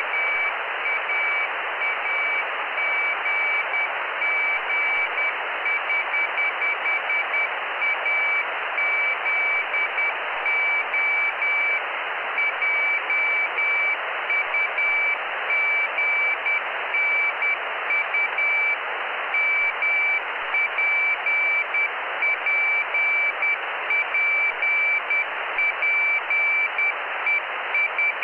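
Morse code (CW) telemetry beacon from the Jugnu CubeSat, received by radio: a high-pitched tone keyed in rapid dots and dashes over steady receiver hiss.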